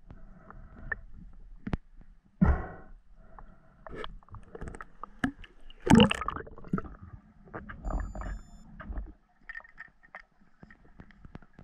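Underwater sounds heard through a diving camera: scattered clicks and knocks with a faint steady hum, and a few louder rushing surges of water. The loudest surge comes about six seconds in, as the diver nears the surface.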